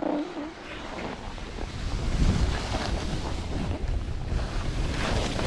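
Wind buffeting a handheld action camera's microphone, building into a low rumble as the skier picks up speed downhill, with skis scraping over packed snow.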